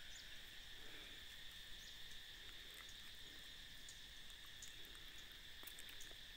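Faint, steady high-pitched drone of insects, with a few faint ticks near the end.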